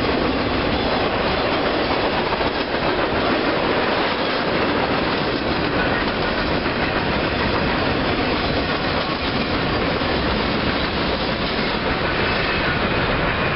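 Freight train cars rolling past close by at speed: steady, loud noise of steel wheels running on the rails.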